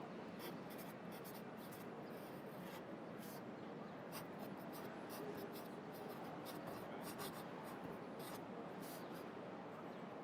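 Pencil writing on paper, scratching in short irregular strokes. Under it runs a steady hum of city traffic.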